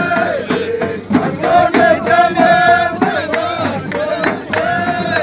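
A group of men chanting a greeting song together, with long held notes in unison and sharp percussive beats keeping time in the second half.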